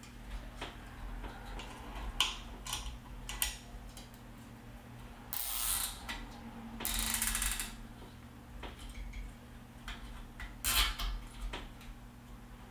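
Plastic zip ties being pulled tight by hand, ratcheting through their locks: scattered short clicks, two longer zips about five and seven seconds in, and a few more clicks near the end.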